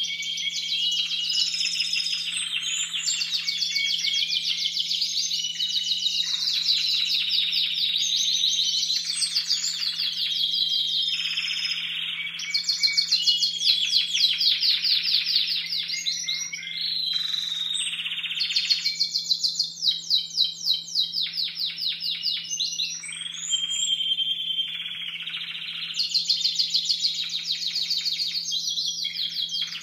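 Young Timbrado Español canaries singing almost without pause in long runs of rapid trills, one run following another with short breaks; their song repertoire is not yet fully formed.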